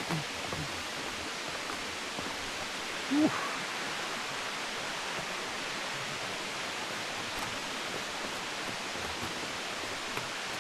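Steady rushing of a waterfall, an even wash of falling water. A few brief low sounds break through near the start and about three seconds in; the one at three seconds rises in pitch and is the loudest.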